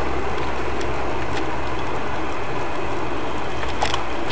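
Car driving: steady engine and road noise, with a small click near the end.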